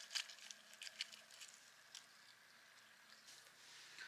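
Near silence: room tone, with a few faint short clicks in the first second and a half.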